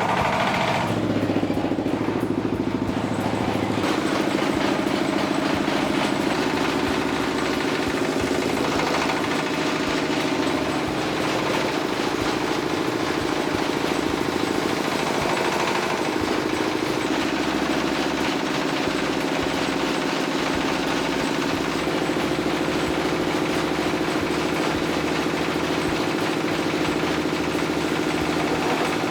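An engine-driven machine running steadily with a rapid, even rattle.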